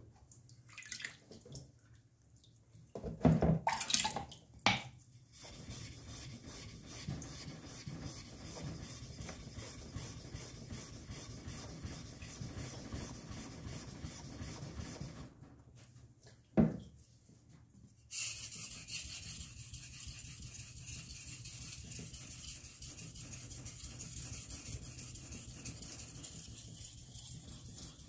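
Daiso kitchen knife being sharpened on a wet whetstone: a steady back-and-forth rasp of the blade on the stone. A few knocks in the first five seconds and one more after about sixteen seconds, and the scraping turns brighter and hissier from about eighteen seconds.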